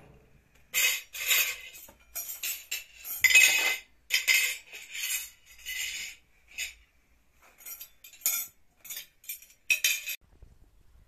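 Metal forks and spoons clinking and rattling against plates as place settings are laid out, in repeated short bunches of sharp clinks that stop shortly before the end.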